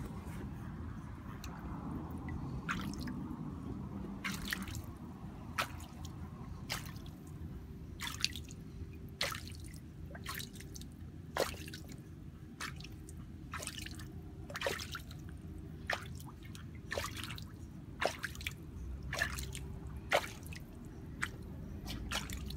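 Scattered water drips and small plops, about one a second, as a tiny dog paddles its paws at the surface of a shallow kiddie pool. A steady low hum runs underneath.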